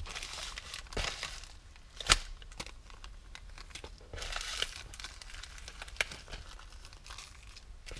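Crinkly plastic packaging rustling as it is handled, with a few sharp taps and clicks, the loudest about two seconds in.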